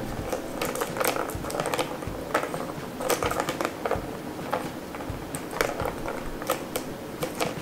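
Plastic balls clicking and rattling around a three-tier plastic cat ball-track tower as kittens bat them with their paws: a run of irregular light clicks and knocks.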